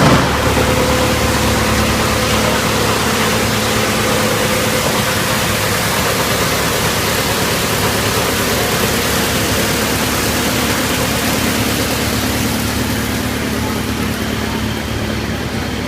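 Drum wood chipper running steadily: a constant machine hum with a broad rushing noise.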